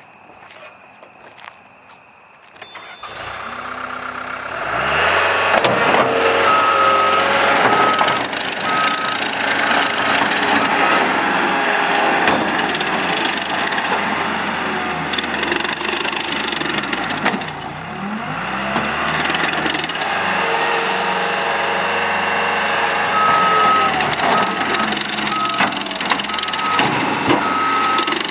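Caterpillar 287B rubber-track skid steer's diesel engine starting about three seconds in, revving up and running hard as the machine is worked, its pitch dipping and rising again around the middle. Its backup alarm beeps steadily in two spells, from about six to eleven seconds and again near the end, the sign that it is reversing.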